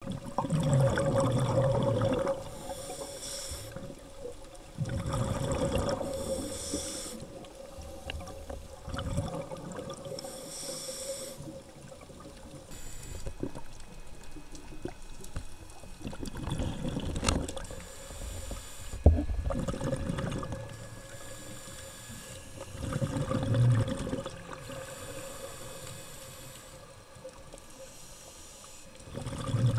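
A scuba diver breathing through a regulator underwater: hissing inhales alternating with rumbling bursts of exhaled bubbles, every few seconds.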